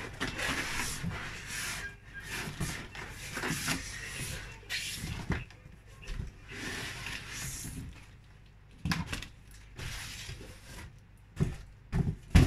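Cardboard boxes scraping and rubbing against each other as a boxed tower fan is slid out of a larger cardboard shipping carton, with a few knocks near the end.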